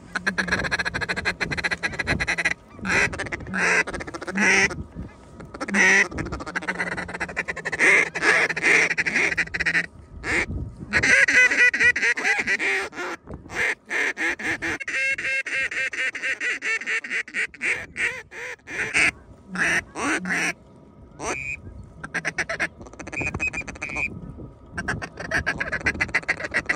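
Hunters' hand-blown duck calls giving strings of quacks and rapid chattering feed calls, loud and close, in runs with short breaks, calling to a flock of ducks circling overhead. The chatter is fastest near the end.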